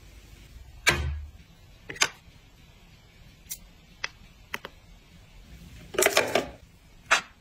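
Sharp clicks and taps of small glass and plastic skincare bottles being handled and set down, with a short rustling clatter about six seconds in as an item is dropped into a small bin lined with a plastic bag.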